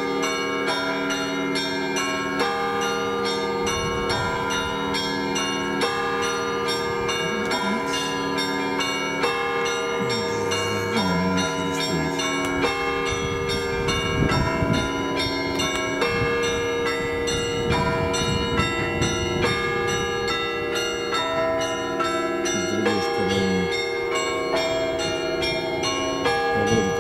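Russian Orthodox church bells ringing: many bells of different pitches struck in a quick, irregular pattern, their tones ringing on and overlapping.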